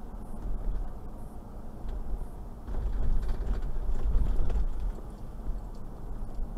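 Toyota Land Cruiser 120 on the move at about 40 km/h: a steady low rumble of road and running noise. It grows louder for about two seconds in the middle.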